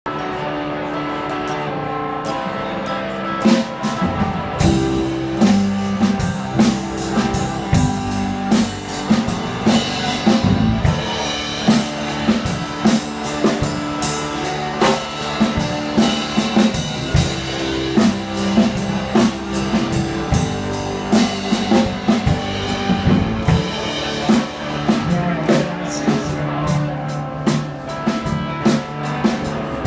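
Live rock band playing loud amplified electric guitar with a drum kit. The guitars play alone at first, and the drums come in about three and a half seconds in.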